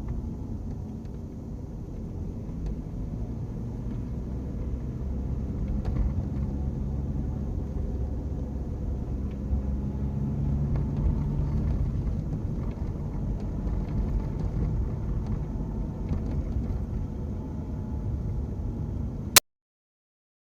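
Cabin sound of a diesel BMW 1 Series on the move: steady road and drivetrain rumble, faint tones running through it, and light rattling from the phone cradle. The owner hears a gearbox whine in this car that goes away with the clutch pressed and grows louder from third gear upward. The sound cuts off suddenly with a click about 19 seconds in.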